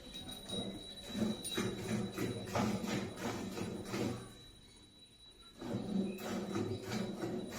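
Hand milking of a Murrah buffalo: rhythmic squirts of milk hitting a pail, pausing briefly about two-thirds of the way through and then resuming.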